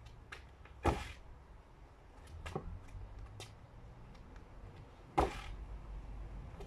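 Trainers stepping on patio paving slabs in fencing footwork: light taps and scuffs, with two louder stamps, about a second in and about five seconds in, the second as the front foot lands in a lunge.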